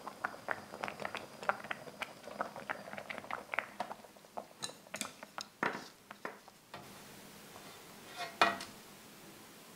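Water boiling in a saucepan with lasagna sheets, bubbles popping in quick irregular clicks. Near the end, wooden chopsticks clack against the pot as a cooked sheet is lifted out.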